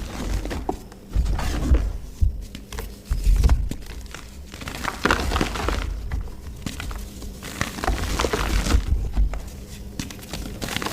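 Mud being crushed: crumbly crackling with dull low thuds, in uneven bursts every second or so.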